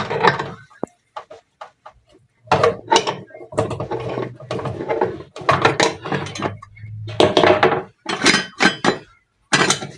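Cooking pot and utensils clattering and knocking in irregular bursts as the remaining ingredients are added to the pot.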